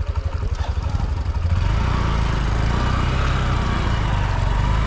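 Motorcycle engine running at low revs with an even putter, then opened up and running harder and steadier about a second and a half in.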